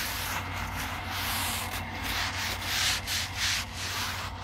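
Wad of paper towels rubbing over a wet metal flat-top griddle plate, drying it after rinsing off the soap, in repeated wiping strokes about every half second.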